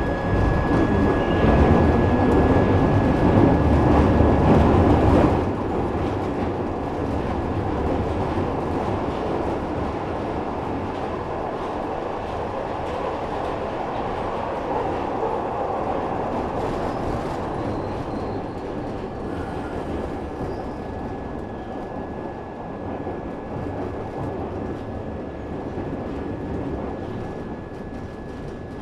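Glasgow Subway train running through the tunnel, with wheels rumbling on the rails and a thin steady high whine. It is loudest for the first five seconds or so, then settles and grows gradually quieter.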